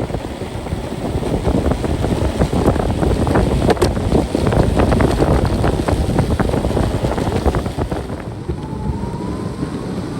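Electric skateboard riding over rough pavement: the wheels rumble continuously, with frequent small clicks and crackles, and wind buffets the microphone. A faint rising whine from the 900W hub motor comes in near the end as the board speeds up.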